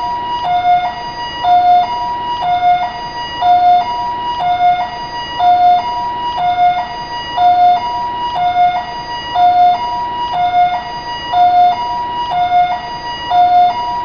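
Taiwanese ambulance siren sounding its two-tone hi-lo call: a higher and a lower tone alternating evenly, about one high-low pair a second, with no break.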